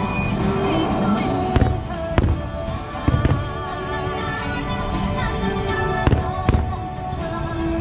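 Fireworks shells bursting, about half a dozen sharp bangs and thuds, over the show's soundtrack music.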